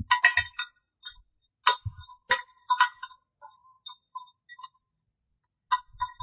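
Scattered clicks, taps and metallic clinks of wires and a circuit board being handled inside a metal amplifier cabinet, with a cluster of sharp knocks in the first second, a few more around two to three seconds in and one near the end.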